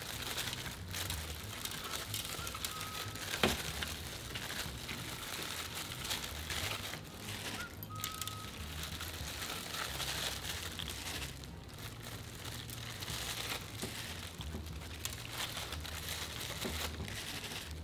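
Thin disposable plastic food-prep gloves crinkling and napa cabbage leaves rustling as the leaves are pried apart and handled, in an irregular continuous rustle.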